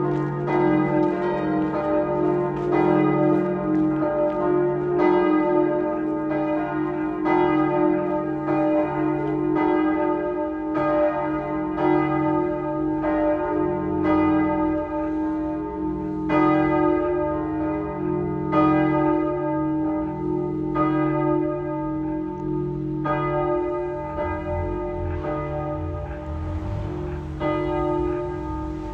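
Several church bells ringing together in a full peal, their strokes overlapping in an uneven tumble, with one heavy stroke standing out about every two seconds.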